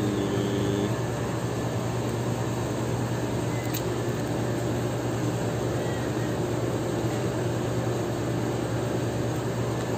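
Steady drone of machinery with a constant low hum, loud enough to be called noisy. A single sharp click about four seconds in as the lid of a plastic cat-food container is popped open.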